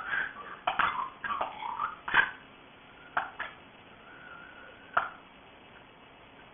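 A pet animal making odd sounds: short squeaky calls mixed with sharp clicks over the first two seconds, then a few more clicks and a faint held tone that ends in a click about five seconds in.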